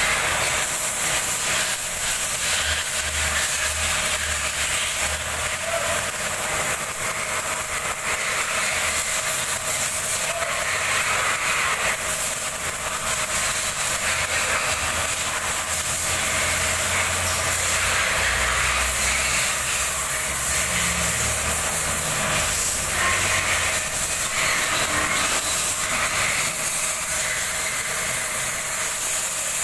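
Wire-feed (MIG) welding arc burning steadily: a continuous crackling hiss as the wire melts into a part held in a lathe chuck, throwing spatter.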